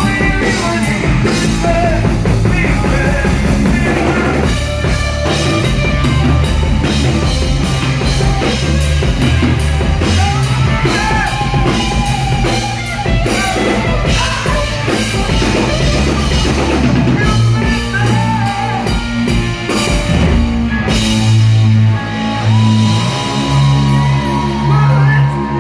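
Live rock band playing: a man singing over electric guitar and a drum kit, with a long held note near the end.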